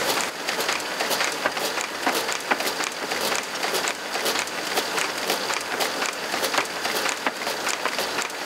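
Print-finishing machinery running, with a dense, irregular clatter of paper and moving metal parts, several sharp clicks a second.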